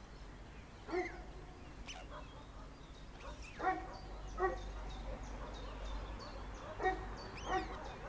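Short, sharp animal calls, five of them, the later ones coming in pairs, over rapid faint high chirping.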